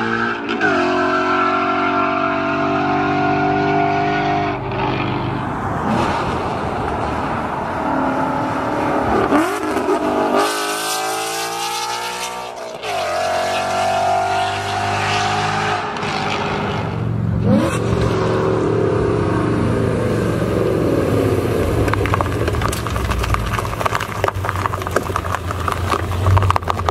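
Straight-piped Ford Mustang GT's 5.0 V8 under hard acceleration. The pitch climbs with the revs and drops sharply at each upshift, several times over. Near the end it settles into a lower, uneven rumble with rapid crackling.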